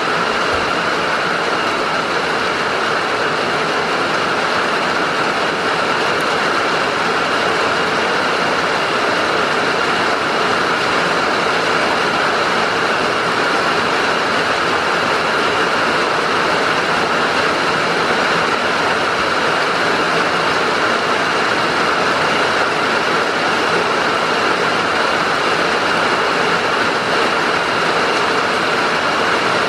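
Steady rain falling, a constant even hiss with no let-up.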